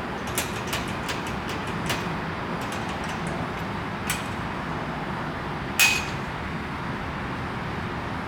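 Steady background hum with a scattered series of light clicks and taps, then one louder sharp clink about six seconds in that rings briefly.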